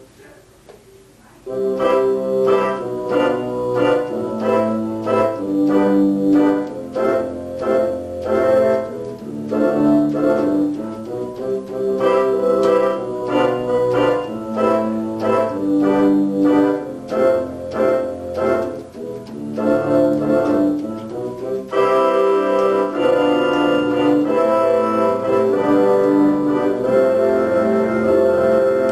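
Yamaha PSR-28 portable keyboard playing rhythmic chords and notes in an organ-like voice after a short pause at the start; about two-thirds of the way through the sound changes to a brighter, more sustained voice.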